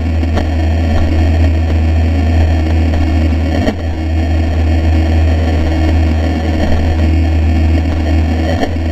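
Traxxas Spartan electric RC boat running on the water, heard from a camera mounted on board: a loud, steady low drone with a haze of water and wind noise, broken by a sharp knock just before four seconds in and another near the end.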